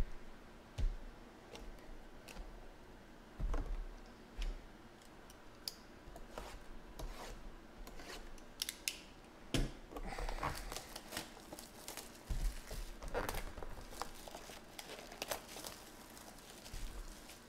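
Plastic shrink wrap being torn and crinkled off a cardboard trading-card box, heard as many short crackles that are densest in the second half. A few low thumps come from the boxes being handled on the table.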